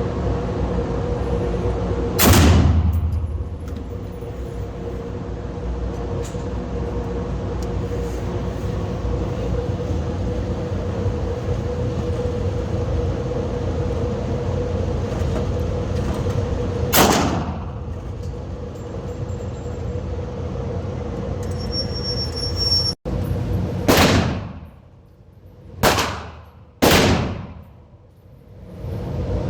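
Gunshots at a shooting range: two single shots about fifteen seconds apart over a steady background hum, then a quicker string of three or four shots a second or two apart near the end.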